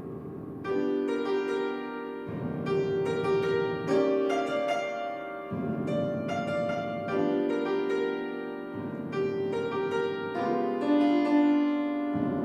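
Solo piano: sustained chords ring on over deep bass notes held with the pedal, a new bass note every one to two seconds.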